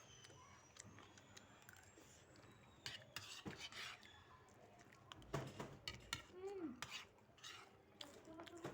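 Cutlery clinking and scraping against plates as rice is eaten, in scattered clicks, most of them in the second half.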